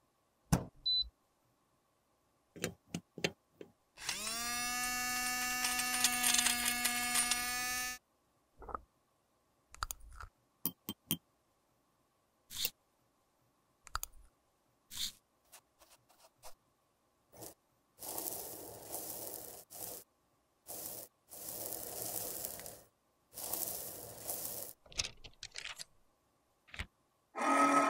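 Close-miked makeup-repair handling sounds: scattered clicks and taps of tools on glass and metal, and a metal spoon stirring powder in a glass jar. A steady machine hum lasts about four seconds early on. Later come several noisy bursts of about a second each, and a second pitched hum starts near the end.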